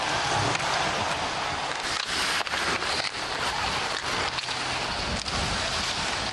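Large hockey crowd cheering and applauding in a steady wash of noise, with scattered sharp knocks.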